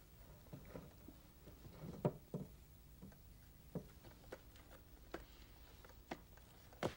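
Quiet handling noises: a cloth-covered bowl is lifted down from the top of a wooden cabinet. About nine light knocks and taps come at scattered moments, the sharpest about two seconds in.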